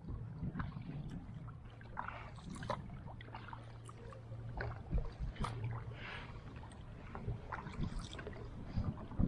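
Kayak paddling: paddle blades dipping and dripping water in short, irregular splashes, over a steady low hum.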